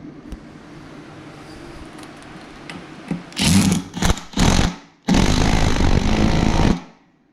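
Power drill running in three short bursts, then one longer run of about a second and a half that stops suddenly, while holes are drilled or rim screws are driven into a wheel rim.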